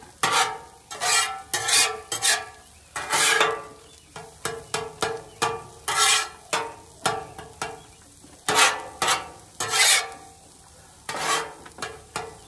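Metal spatulas scraping and clanking on a Blackstone griddle's steel cooktop while scrambling eggs: an irregular run of scrapes and taps, each with a brief metallic ring.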